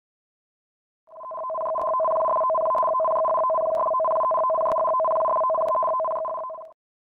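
Electronic alert tone of two steady pitches sounding together, fading in about a second in and ending shortly before the end: the alarm for a tsunami warning in an earthquake-warning simulation.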